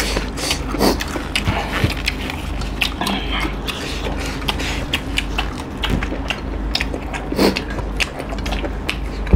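Close-miked chewing and lip-smacking of two people eating chicken curry and rice by hand: a steady run of wet mouth clicks and smacks, with a few louder smacks.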